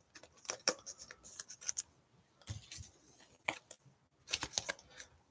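Trading cards being slid into rigid plastic toploaders: short scrapes and clicks of card and plastic, in irregular bunches with brief pauses between them.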